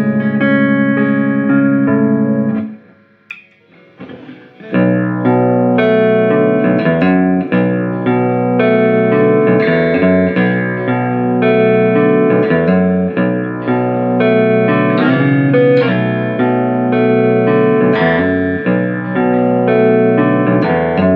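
Amplified Squier Paranormal Baritone Cabronita Telecaster, tuned down to B standard (B E A D F# B), played through its single-coil pickups. A held chord rings out, then there is a short pause about three seconds in, and then picked chords and single notes run on without a break.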